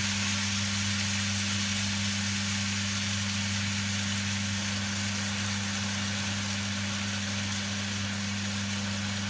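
Pork belly cubes sizzling in a wok as soy sauce is poured in, over a steady low hum.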